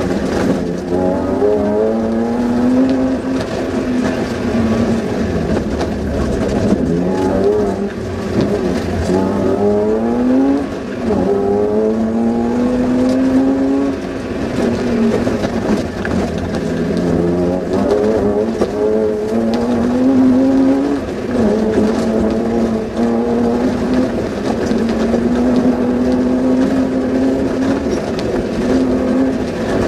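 Off-road rally Suzuki Vitara's engine heard from inside the car, revving hard: its pitch climbs over a few seconds and then drops again, several times over, as it pulls through the gears.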